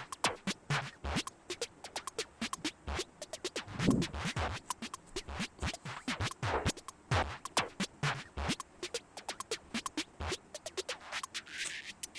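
Irregular small clicks and scrapes of tools working on a plastic action-figure leg, with a short hissy scraping stroke near the end.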